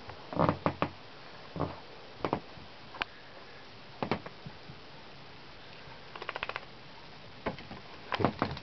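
Scattered small knocks and scrapes, with a quick run of light ticks about two-thirds of the way through, as miniature pinscher puppies move about inside a hard saxophone case.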